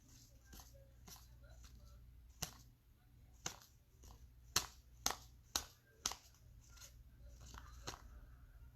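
2019 Unparalleled football trading cards being flipped through one by one, with about ten sharp clicks at uneven intervals as the cards snap against each other, over a faint low hum.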